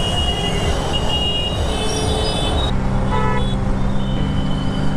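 Road traffic heard while riding: engine and road rumble with short, high horn toots. About three seconds in the sound changes abruptly to a steadier low hum, with one more brief toot.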